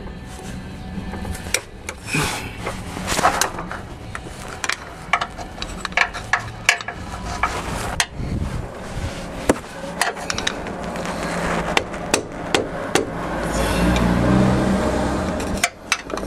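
Hammer tapping on a screwdriver wedged between a 2009 Toyota Corolla's inner CV joint and the transmission, prying the CV axle free of the transmission. Sharp metal knocks at an uneven pace, with a longer scraping noise near the end.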